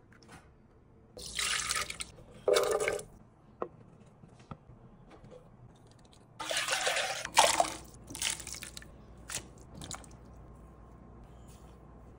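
Liquid being poured into a slow cooker crock: two short pours near the start, a longer, louder pour about halfway through, then a few brief splashes.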